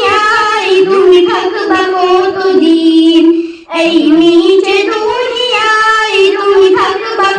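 A high-pitched solo voice sings a slow Bengali devotional song in two long phrases, with drawn-out, wavering notes and a short breath between them about halfway through.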